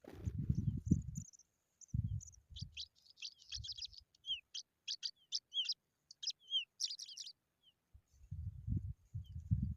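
Pipits chirping: a quick run of many short, high chirps lasting about five seconds, some sliding downward, over a faint steady insect trill. Low rumbles come at the start and again near the end.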